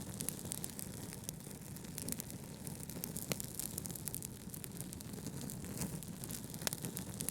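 Wood fire crackling in a fireplace: steady low rumble with many small pops and snaps, a couple of sharper ones, over a bed of brown noise.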